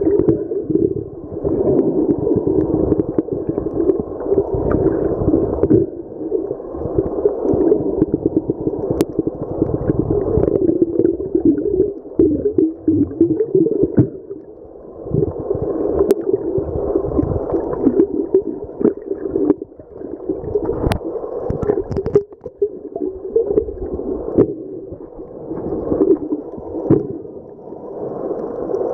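Muffled underwater water noise picked up by a submerged camera, a dull rumbling hiss that rises and falls every few seconds. A few faint sharp clicks fall in the middle.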